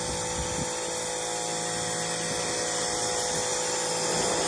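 Greenworks Pro 3000 psi electric pressure washer running under load, its brushless motor and pump whining steadily under the hiss of the high-pressure jet blasting old stain off wooden deck boards.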